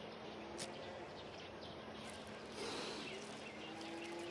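Quiet outdoor rural ambience: a faint steady hiss with a faint low hum and a soft click about half a second in.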